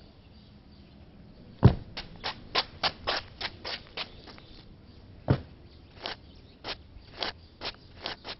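A loud thump about a second and a half in, followed by a quick run of light taps or clicks, about three a second, with a second thump midway and more taps after it.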